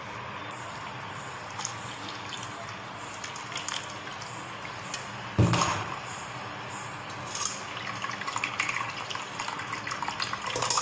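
Ground soaked-wheat slurry draining through a steel mesh strainer into a large steel pot, the liquid trickling and splashing as the pulp is pressed by hand to squeeze out the wheat milk. One sudden knock about halfway through.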